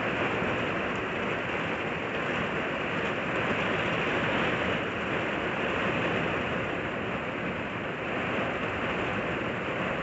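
Heavy wind-driven rain pouring down in a thunderstorm, a steady rushing noise that swells slightly now and then.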